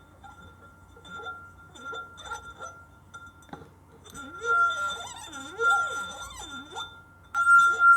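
A steady high ringing tone, faint at first and much louder from about seven seconds in, with wavering, sliding sounds beneath it.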